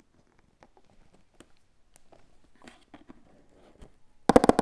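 A cardboard subscription box being handled and opened: light taps and rustles, then near the end a loud, brief rapid scrape of cardboard as the lid comes off.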